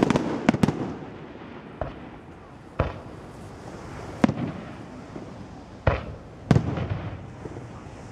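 Aerial firework shells bursting overhead: a quick run of sharp bangs at the start, then single bangs every one to two seconds.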